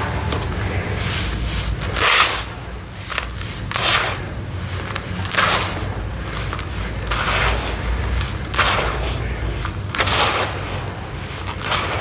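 Clumps of sawdust and sand crumbling and breaking up in water, a crackly crumble every second or two.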